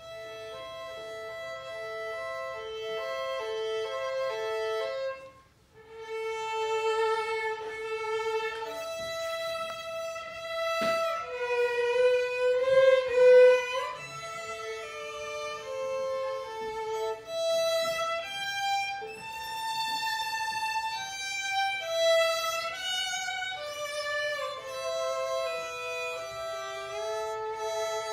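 Two violins playing a duet, often sounding two notes together, with a short break about five seconds in and a quick downward slide near the middle.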